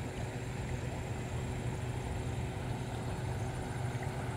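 Steady rushing of a fast-flowing river in flood, swollen by days of heavy rain, heard as an even noise with a low rumble.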